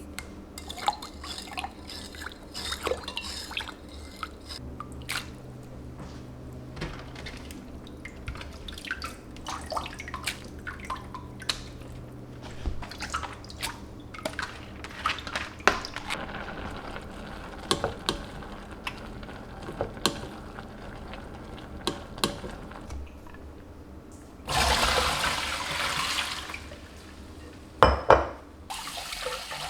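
Kitchen work sounds: scattered small clicks and knocks of things being handled, over a faint steady hum. Near the end a kitchen tap runs for about two seconds, followed by a loud clank.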